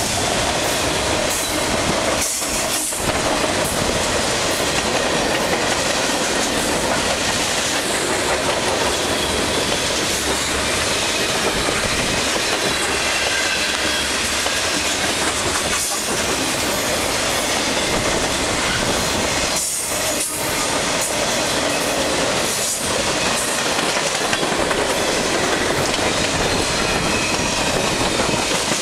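Freight cars of a long mixed train, autoracks and tank cars, rolling past at close range. There is a continuous loud clatter and rumble of steel wheels on the rails, with a few brief dips in the noise.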